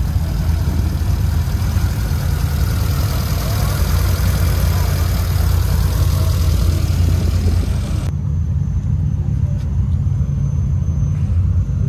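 Car engine running with a steady low rumble. A higher hiss over it cuts off abruptly about eight seconds in, while the rumble carries on.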